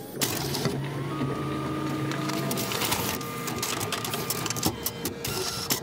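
Office copier running a print job: a steady mechanical whir with rapid clicking and a thin steady whine that starts about a second in and stops shortly before the end.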